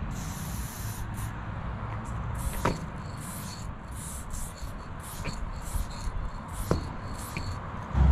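Aerosol spray paint can hissing in a quick series of short bursts, some longer, as lines are sprayed onto a wall. Two sharp clicks break in, and a low rumble runs underneath.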